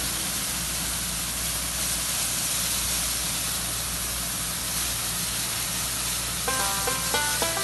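Tower-type air-blast orchard sprayer running, with a steady hiss of blown air and spray mist over a low drone. Background music comes in about six and a half seconds in.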